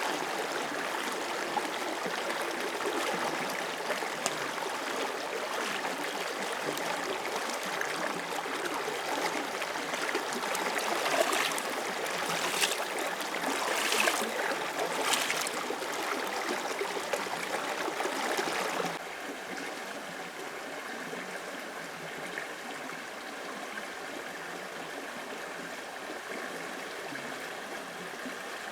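Steady rush of running water, like a forest stream, with a few short sharp noises over it around the middle. About two-thirds of the way in, the sound abruptly drops to a quieter, steadier level.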